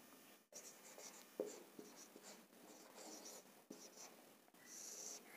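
Faint sound of a marker pen writing on a whiteboard: short, separate scratchy strokes of the tip with a few light taps.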